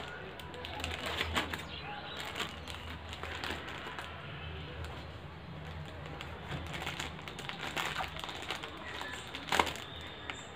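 Plastic courier mailer bag crinkling and rustling as it is handled, with scattered clicks and a sharp crackle about nine and a half seconds in, over a steady low hum.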